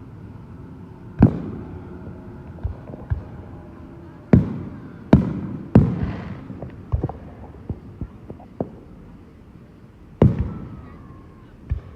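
Fireworks going off: a handful of loud bangs, each trailing off in a rolling echo, with smaller pops and crackles in between.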